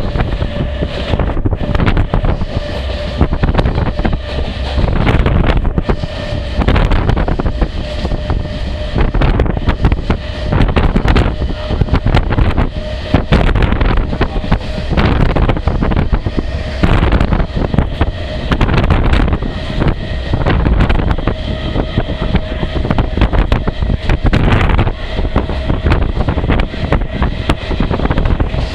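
Ride noise from a moving train, heard with wind buffeting the microphone: a constant low rumble with irregular rattling and clatter, and a faint steady hum under it.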